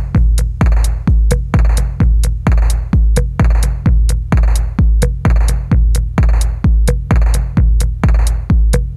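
Electronic background music with a steady drum-machine beat: a deep kick about twice a second with crisp hi-hat ticks between.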